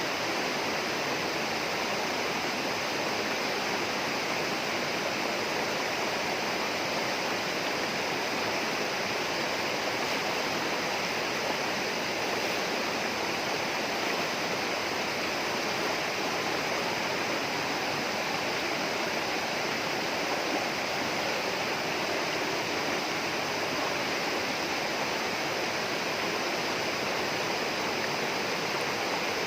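Rushing water of a rainforest stream or small waterfall, a steady, unbroken rush.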